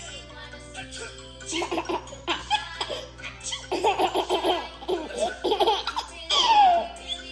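A baby laughing in repeated bursts of giggles, ending in a loud squealing laugh that falls in pitch near the end, over background music.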